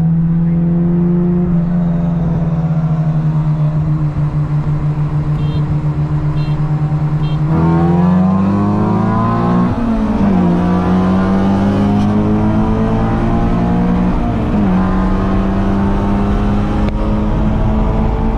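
Modified K24 2.4-litre four-cylinder of a 2012 Honda Civic Si, heard from inside the cabin. It holds steady at roll-race cruise, then goes to full throttle about seven seconds in, its note climbing. It drops sharply at an upshift around ten seconds in, dips again briefly near fifteen seconds, and keeps pulling.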